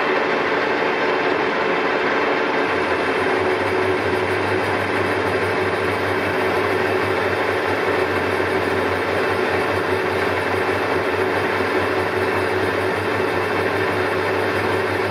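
Colchester Triumph 2000 lathe turning a long shaft with the tool chattering in the cut: a steady tone over the machine's running noise, with a low hum joining about three seconds in. The chatter is the slender shaft vibrating under the cut, unsupported in the middle without a steady.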